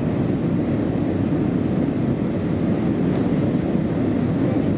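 Steady, low cabin noise inside an Airbus A320-233 in flight: the rush of airflow over the fuselage together with its IAE V2500 engines, heard from a window seat.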